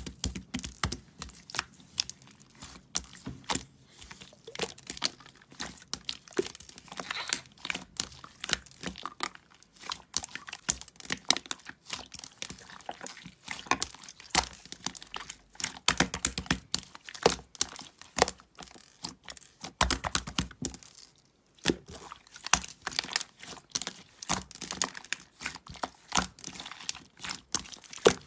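Close-up crackling and crinkling handling sounds: dense, irregular sharp clicks and pops, with a short pause about twenty seconds in.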